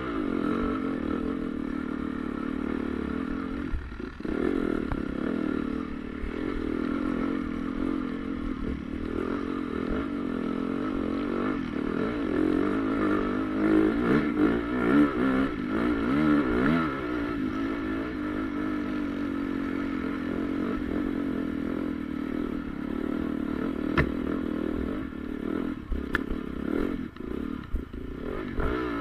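Honda CRF450R motocross bike's four-stroke single-cylinder engine running on the throttle, its pitch rising and falling as it revs up and down, most of all around the middle.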